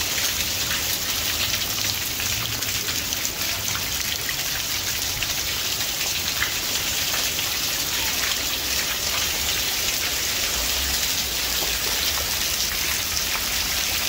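Heavy rain pouring down and splashing into puddles on muddy ground, a steady dense patter of countless drops.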